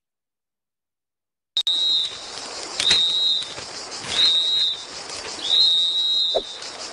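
Silence, then about a second and a half in, four short high whistle notes at one steady pitch, about a second apart, over a faint hiss.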